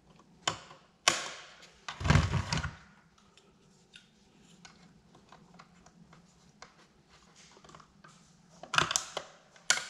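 Irregular small clicks and taps of a Philips DreamStation CPAP machine's plastic casing and parts being handled and screwed back together. A louder knock and rattle comes about two seconds in, and a couple of sharper clicks near the end.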